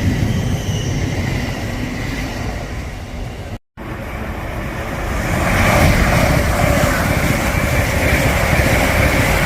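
Train noise in two shots: a steady rumble with a faint whine, then, after an abrupt cut about a third of the way in, a louder train passing through with a rushing roar and a steady high whine from about halfway.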